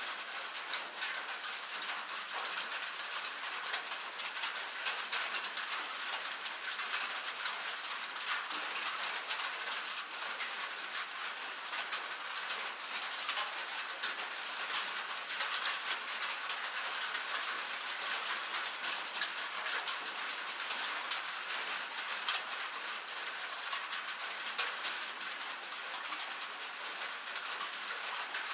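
Steady rain drumming on a metal roof: a dense, even hiss made up of countless fine, quick drop ticks, with no change in strength.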